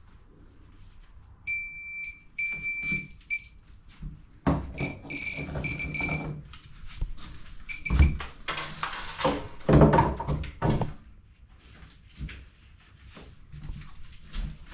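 Cordless impact driver, a replica of a DeWalt, run in short trigger bursts with a high whine while driving a screw into a wooden floor joist. Louder clattering knocks follow for a few seconds.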